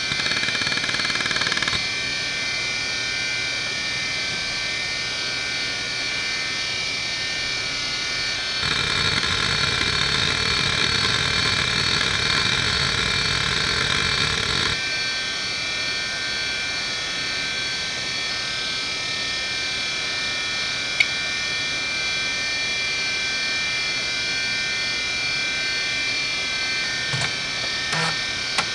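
Conner Peripherals CFS850A 850MB 3.5-inch hard drive running at 3600 rpm with a steady high-pitched whine. For about six seconds in the middle a louder, rushing noise of its heads seeking under a benchmark rises over the whine. A single click comes later, and a few clicks near the end.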